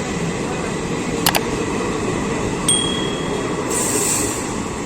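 Passenger train running on the rails with a steady rumble. A pair of sharp clicks comes about a second in, and a brief high ringing tone follows near the middle, then a short hiss.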